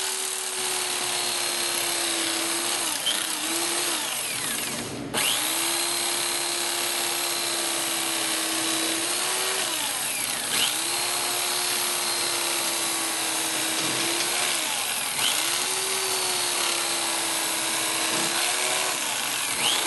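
Electric carving knife running in four stretches of three to four seconds each, a steady motor hum that dips slightly as each stretch ends, as it slices through smoked beef brisket.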